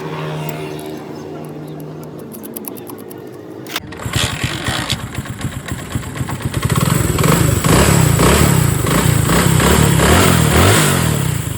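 Engine running, quiet with a steady hum at first, then picking up suddenly about four seconds in with a rapid, rough firing pattern, and louder still from about halfway.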